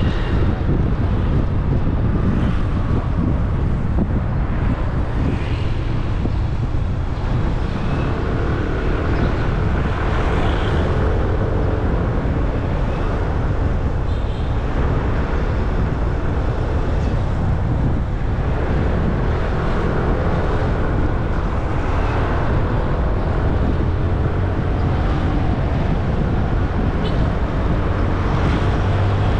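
Motor scooter riding along a road: a steady engine and road rumble mixed with the rush of wind, with no change in speed or pitch.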